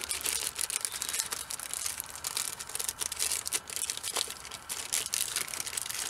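Plastic packaging crinkling and rustling in the hands, an irregular run of crackles.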